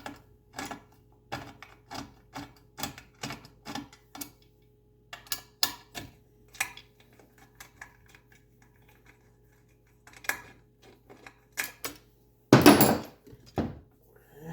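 Hand tools and metal engine parts clicking and clinking as a fuel-rail fitting is worked loose: a regular run of sharp clicks, about three a second, for the first few seconds, then scattered clicks. A loud metallic clatter comes near the end, over a faint steady hum.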